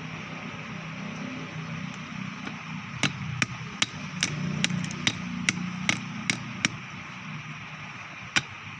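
Hammer tapping: a run of about ten quick, sharp strikes, roughly two and a half a second, then one more near the end, over a steady low hum.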